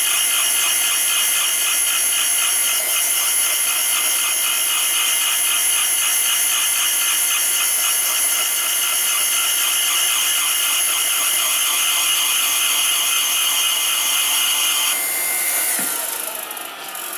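Valve refacing machine running, its grinding stone cutting the face of a spinning engine valve: a steady grinding with whining tones and a faint regular pulse, which is taken as the sign of a very slightly bent valve stem. The grinding winds down near the end.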